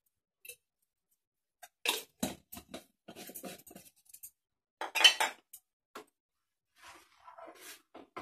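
Kitchen clatter: a small spice jar being handled over the pan and a metal ladle knocking and scraping in a pan of thick dal soup. An irregular string of clinks and knocks, the loudest about five seconds in, with softer scraping near the end.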